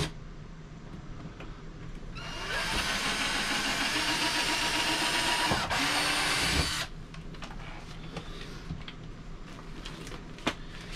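Cordless drill running a small bit into a thin RV wall panel, boring a test hole to find the plywood backer plate behind it. The drill starts about two seconds in, runs steadily for about four and a half seconds, then stops, followed by a single click near the end.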